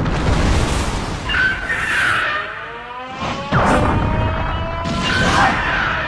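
Giant-monster battle soundtrack: dramatic music under heavy booms and crashes, with two big impacts in the second half.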